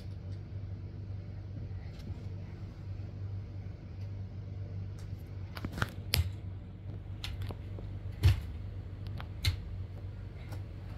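Plastic toy monster trucks clicking and knocking as they are handled and set down, a handful of sharp clacks scattered through the middle, the loudest about eight seconds in, over a steady low hum.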